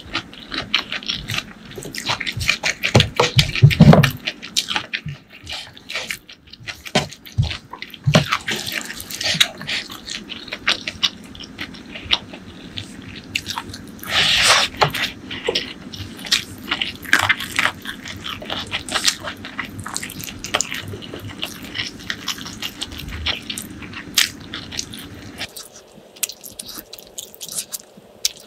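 Close-miked wet eating sounds: fingers squishing curry-soaked rice, with chewing and wet lip smacks making a dense run of small sticky clicks. A heavier thud comes about four seconds in.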